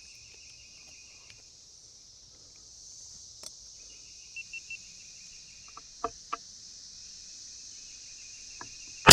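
Steady high drone of insects with a faint pulsed chirping and a few small clicks, then near the end a single sharp crack of an FX M3 air rifle shot, much the loudest sound.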